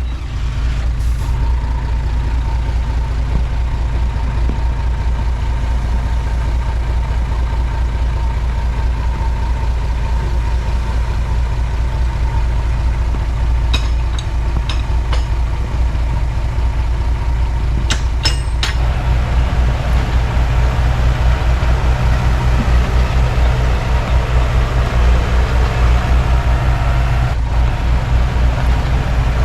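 Komatsu D31P crawler bulldozer's diesel engine running steadily with a deep, even rumble. There are a few sharp metallic clicks around the middle, and the engine grows louder over the last third.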